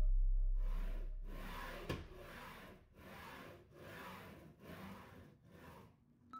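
Spindle head carriage of a homemade CNC mill pushed back and forth by hand along its steel X-axis rails, the linear bearings rolling and rubbing in even strokes that swell and fade about once a second. There is a single click just before the second stroke ends.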